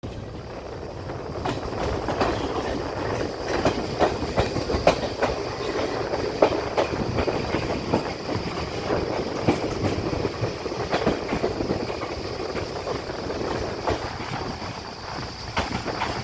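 Passenger train coach running along the track, its wheels rumbling on the rails with irregular sharp clacks over rail joints and points, heard from the open side of the moving coach.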